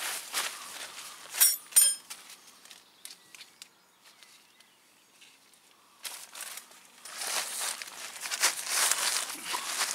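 Green plastic tarp crinkling and rustling as it is spread out and smoothed flat by hand on grass. Two sharp, ringing clinks come about a second and a half in, then a quiet spell, and the crinkling picks up again and is loudest near the end.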